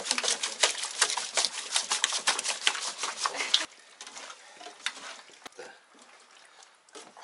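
Minced sturgeon being mixed by hand with spices: rapid, irregular wet squelching clicks that drop off abruptly a little over three and a half seconds in to quieter, scattered clicks.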